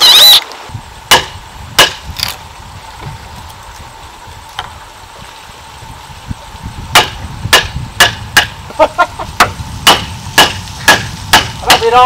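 A cordless drill whirs briefly at the very start. Then a wooden mallet strikes a wood chisel, cutting a mortise in a timber beam: a few scattered knocks in the first two seconds, then from about seven seconds in a steady run of sharp wooden knocks, about two a second.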